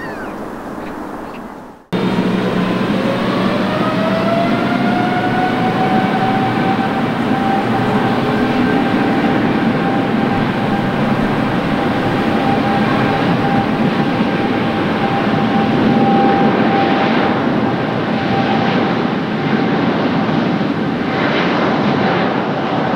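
Boeing 777 freighter's GE90 jet engines running as the aircraft rolls on the ground: a loud, steady whine with one strong tone, which rises in pitch over the first few seconds after a cut and then holds. Before the cut come about two seconds of a Boeing 787-9's landing noise, which stops abruptly.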